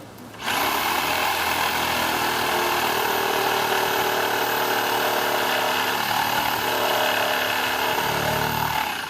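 Electric power saw running and cutting into a tree trunk. It starts about half a second in, runs steadily with a high whine, then winds down near the end.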